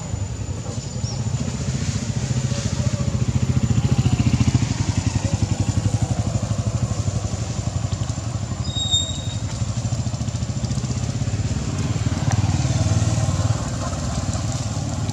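A small engine running steadily: a low, rapidly pulsing rumble that swells a little about four seconds in, with a thin steady high whine above it.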